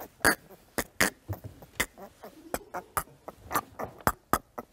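A man laughing helplessly without words, in short sharp bursts of breath that come irregularly, about two or three a second.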